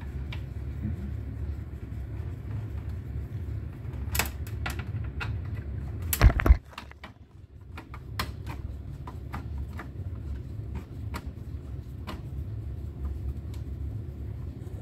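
Scattered clicks and light metallic taps of screws being taken out of an AV receiver's metal chassis, with one loud clunk about six seconds in. A steady low hum runs underneath.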